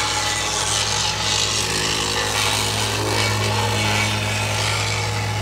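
Diesel engine of a ready-mix concrete truck running steadily, a constant low hum.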